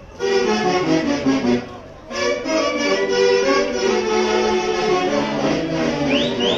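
An orchestra's music starts loudly and suddenly, breaks off briefly about two seconds in, then plays on.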